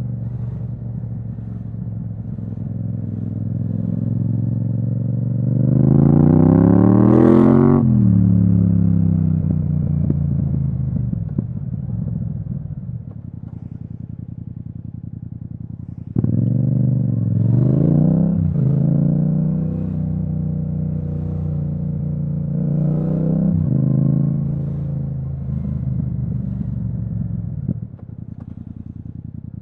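Yamaha MT-07's parallel-twin engine through an Akrapovic exhaust, heard from the rider's seat while riding. About six seconds in the revs climb steeply and then fall away. From about sixteen seconds it pulls hard again, with a brief dip near eighteen seconds, swells once more a little after twenty-three seconds, and settles to a quieter run near the end.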